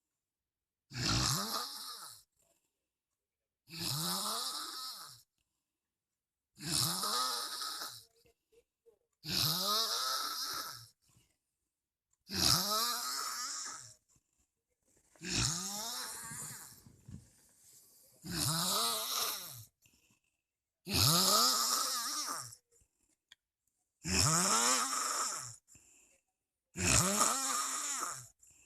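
A man snoring heavily in a steady rhythm. There are about ten rattling snores, each lasting about a second and a half and coming roughly every three seconds, with silence between them.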